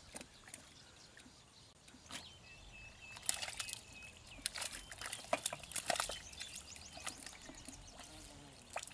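Hands sloshing and splashing in shallow muddy pond water while feeling through the mud for fish, with a busy run of splashes from about three to six seconds in.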